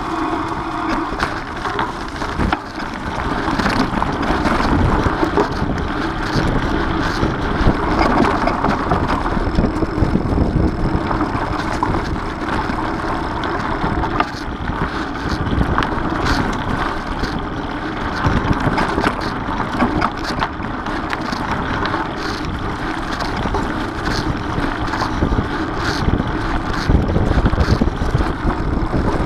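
Mountain bike riding along a dirt singletrack: steady tyre noise over the leaf-covered ground and wind on the action-camera microphone, with frequent small clicks and rattles from the bike.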